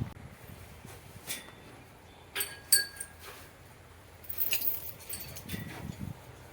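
A few scattered light metallic clinks, some leaving a brief ringing tone.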